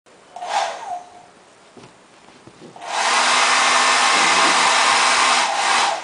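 Hand-held hair dryer switched on for a moment, its motor pitch falling as it stops, then switched on again about three seconds in, blowing steadily for about three seconds before it cuts off near the end.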